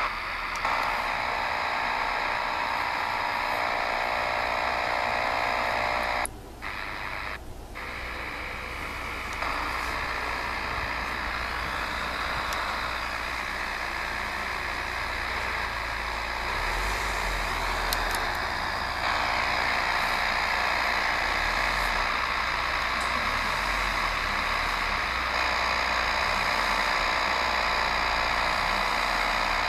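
Degen DE1103 shortwave radio in SSB mode playing band static with a steady buzzing interference signal and faint steady tones underneath, which the owner finds strange because it covers the whole shortwave band. The sound briefly cuts out twice about six and seven seconds in as the radio is retuned.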